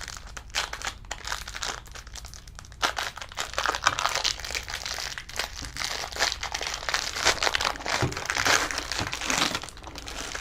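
Trading card pack wrapper being torn open and crinkled by hand: a dense, irregular crackling that gets louder about three seconds in.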